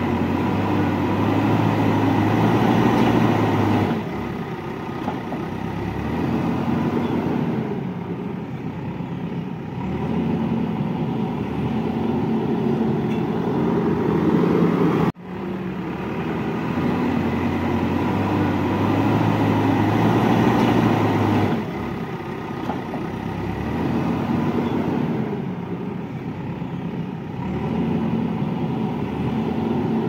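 JCB 3DX backhoe loader's diesel engine running as the machine works, revving up and easing off every few seconds. There is a brief sudden break about halfway through.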